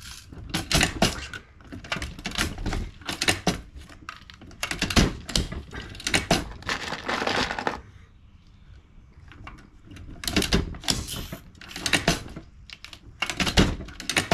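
Quick runs of clicks and clacks from a shotshell reloading press being worked and shell hulls being handled, with a pause of about two seconds in the middle.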